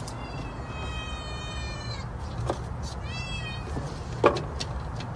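Kitten caught in window blinds meowing twice, high-pitched: one long, even cry and then a shorter one that rises and falls about three seconds in. A sharp knock from the blind slats comes about four seconds in.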